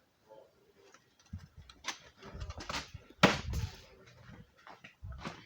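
Clicks and knocks from a fire alarm pull station being handled, with dull thumps beneath and one sharp, loud clack about three seconds in.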